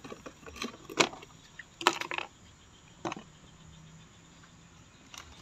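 Handling noises: a few short, sharp knocks and clicks, the loudest about a second in and a quick cluster near two seconds, then a quiet stretch with a faint low hum.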